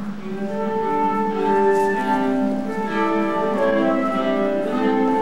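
A small live string ensemble, led by a violin with lower bowed strings under it, plays a dance tune in held notes. The music begins just after the line "Play music then" calls for it.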